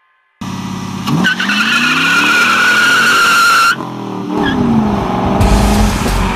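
A 1999 Pontiac Trans Am's V8 revs hard while its rear tires squeal loudly for about two seconds. The sound cuts off abruptly, and the engine is then heard revving with its pitch falling and rising, ending in a deep, heavy rumble.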